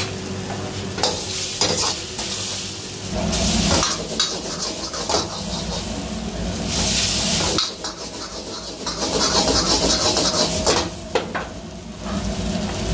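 Egg noodles being stir-fried in a wok: a sizzling hiss that swells and fades, with a metal ladle scraping and knocking against the pan. A low rumble comes and goes underneath.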